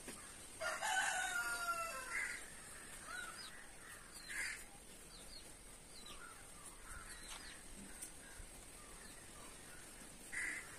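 A rooster crows once, about a second in, in one long call; short calls of other birds follow at intervals.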